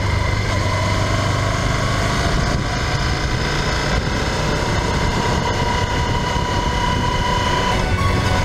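Honda Varadero XL1000V motorcycle's V-twin engine running at a steady speed under way, a continuous even drone with no change in revs.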